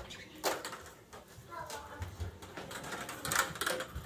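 Motorized Santa's Ski Slope Christmas ornament running, its lift and track mechanism giving off irregular clicks and clatter.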